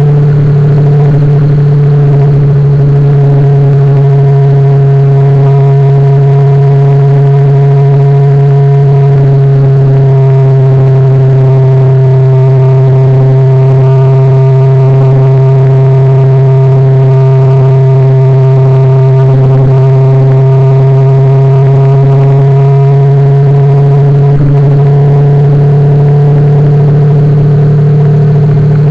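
Honda VFR's V4 engine running at a steady cruise, a constant drone whose pitch sags slightly midway and rises again near the end.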